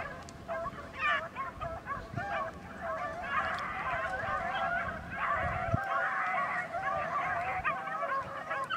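A pack of beagles baying on a rabbit's trail, many overlapping voices crying at once; the chorus thickens about three seconds in. The pack is on the scent, running the rabbit.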